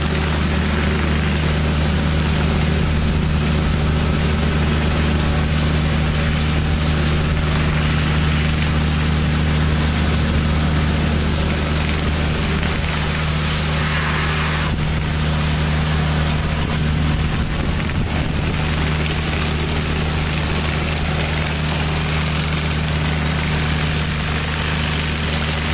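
The 28 HP Kubota diesel engine of an Alkota hot-water pressure washer running steadily under load, with the constant hiss of high-pressure water spraying onto paving stones.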